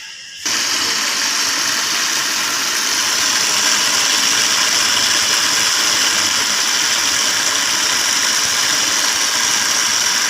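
Electric juicer-grinder switched on, grinding rice and water into a paste. It starts suddenly about half a second in and runs steadily.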